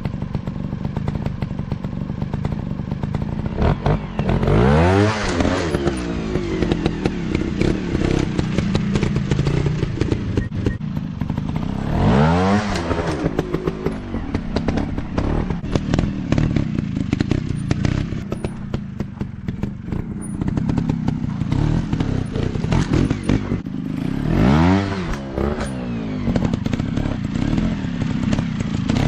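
Dirt-bike engines running steadily, with the engine note swelling up and dropping back sharply three times as a bike revs.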